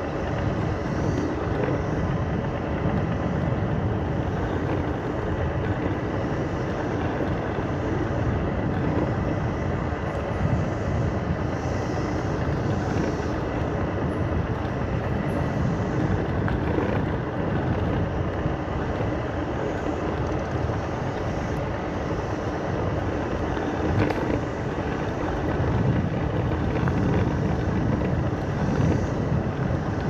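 Steady ride noise from a Segway Ninebot Max G2 electric scooter in motion: wind rushing over the microphone and the tyres rumbling over the trail, heaviest in the low end. A faint thin whine runs under it.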